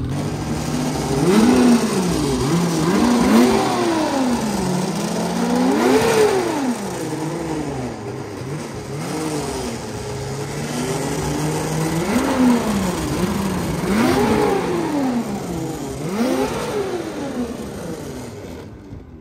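Ski-Doo 850 E-TEC two-stroke twin snowmobile engine running stationary and being revved again and again, each rev rising in pitch and falling back toward idle.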